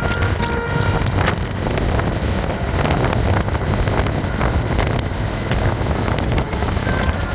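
Road traffic rumble with wind buffeting the microphone.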